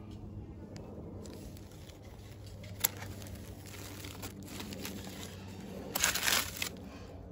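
A thin plastic bag crinkling as scissors work against it, with a sharp snip just under three seconds in and a louder rustle of the plastic about six seconds in.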